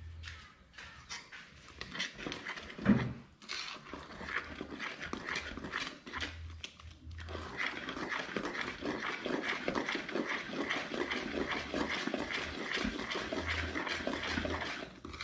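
Wire whisk beating pancake batter in an aluminium bowl. The strokes are irregular at first, then settle into a fast, even rhythm about halfway through.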